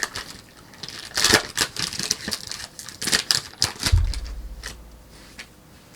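Trading cards being handled and flipped through, with quick clicks and rustles as cards slide over one another, and a low thump about four seconds in.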